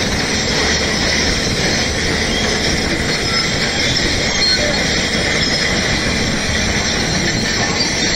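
Hyundai 210 crawler excavator running steadily under load as it works rock, a loud, unbroken mix of diesel engine and hydraulics.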